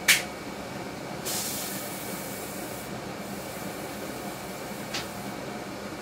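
Furnace blower motor running steadily, with a sharp click right at the start and a smaller one about five seconds in, and a brief hiss about a second in. The furnace has turned itself on with the thermostat off and the gas shut off, and keeps trying to light.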